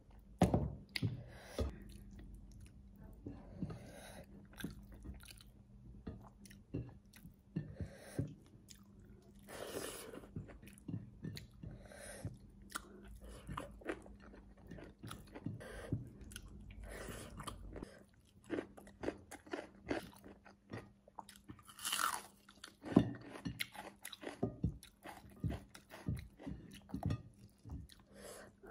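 Close-miked chewing and biting on goat ribs, with irregular crunches and clicks all through.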